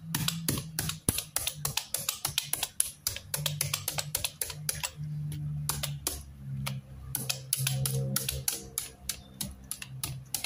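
Rapid tapping of a handheld needle meat tenderizer stabbed into raw chicken thighs on a wooden cutting board, about four or five sharp taps a second, with a low steady hum underneath.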